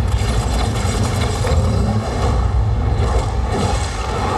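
Film trailer soundtrack played loud through a mobile outdoor cinema's loudspeaker rig during a sound test: a heavy, steady low rumble of sound effects between lines of dialogue.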